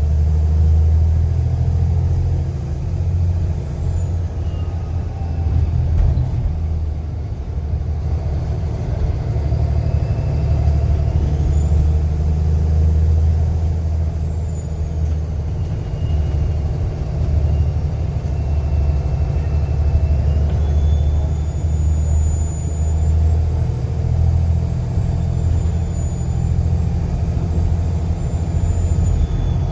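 Volvo B7TL bus's six-cylinder turbodiesel engine running, a steady low drone under a high turbocharger whistle that rises and falls several times, climbing at about 12 seconds and again past 20 seconds.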